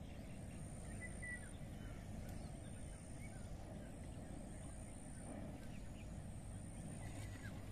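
Quiet riverbank ambience: a steady low rush, with a few faint short bird chirps scattered through it.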